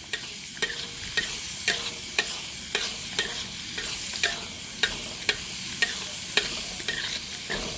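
Tomatoes and shallots frying with a steady sizzle in a pan while a utensil stirs them, knocking and scraping against the pan about twice a second.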